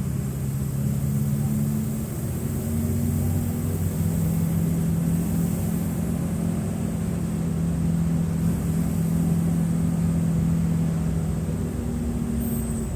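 Mercedes-Benz OF-1723 bus's OM906LA six-cylinder turbodiesel running, a steady low drone that shifts slightly in pitch a few times.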